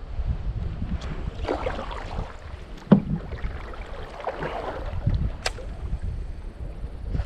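Strong wind buffeting the microphone with a steady low rumble, broken by short splashes of water and a sharp knock about three seconds in, with a lighter click a couple of seconds later.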